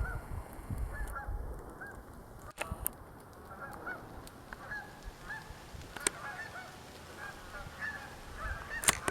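A flock of geese honking, many short overlapping calls going on steadily, with a few sharp clicks among them.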